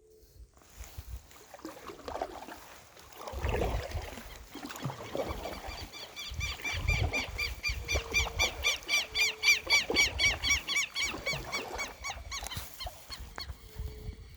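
An animal calling outdoors: a rapid run of repeated high notes, about four a second, lasting some six seconds, over low rumbling and a few knocks.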